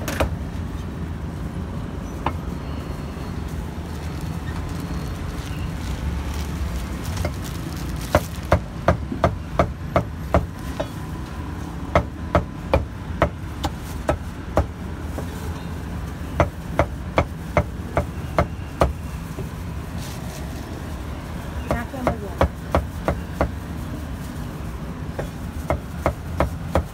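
Cleaver chopping roasted meat on a wooden chopping board: runs of sharp, evenly spaced strokes, about three a second, starting about eight seconds in and stopping and starting in short runs, over a steady low rumble of traffic.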